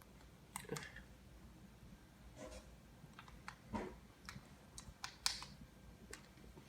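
Scattered small clicks and rattles of a plastic TV remote and its batteries being handled as the batteries are fitted into the battery compartment, with a few sharper clicks past the middle.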